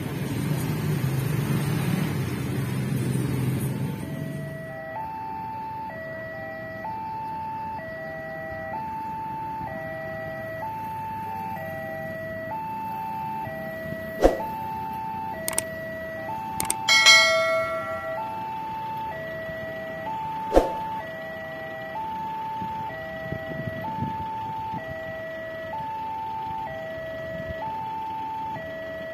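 Electronic warning alarm of a railway level crossing, beginning about four seconds in after a few seconds of rumbling noise: two tones alternate steadily, a higher note and a lower note, each lasting roughly a second. The crossing is signalling that a train is approaching. A few sharp clicks and one brief loud blare come about halfway through.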